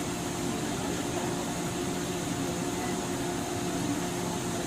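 Steady mechanical hum and noise inside a JR West 103 series electric train car (motor car MoHa 103-773), with a few even tones over a steady rush.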